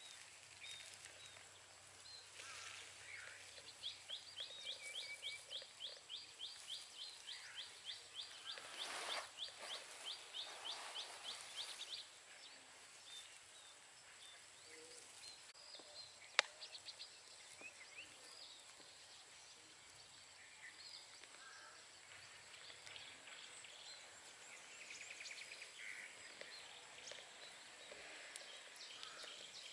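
Quiet open-field ambience with birds calling: a rapid run of short high chirps, about four a second, for several seconds near the start, then scattered calls. A single sharp click about halfway through.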